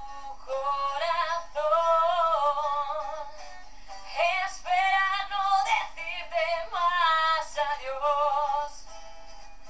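A woman singing in short phrases with a wavering pitch; the singing stops shortly before the end, leaving a steady low electrical hum.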